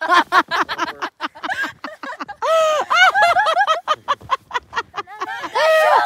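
High-pitched voices talking in short bursts, with many short sharp clicks or crackles between them.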